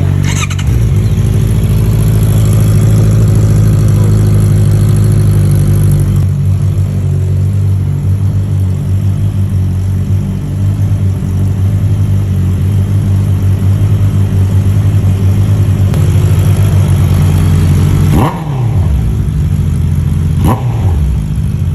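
Honda CB650R's inline-four engine with an Akrapovic aftermarket exhaust idling steadily and loudly, with a quick blip of the throttle at the start. Near the end come two sharp revs, each dropping back to idle. The sound echoes in an enclosed parking garage.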